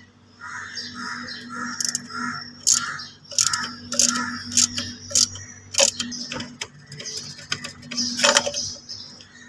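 Hands working the loosened mounting bolt out of a scooter's front shock absorber: sharp metal clicks and taps, the loudest a little before the end, over a steady low hum. A rhythmic run of about eight short sounds, about two a second, fills the first half.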